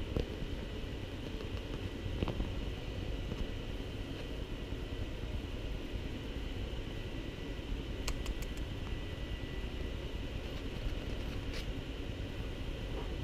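Steady low rumble and hiss of background noise with a faint steady high tone, and a few soft clicks about eight seconds in and again near the end.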